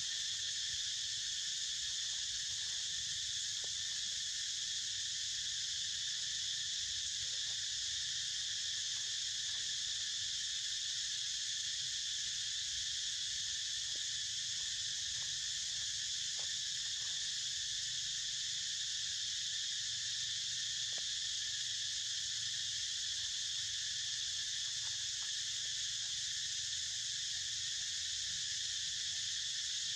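Steady, unbroken insect chorus, a high-pitched shrill drone that holds an even level throughout, with a faint low rumble underneath.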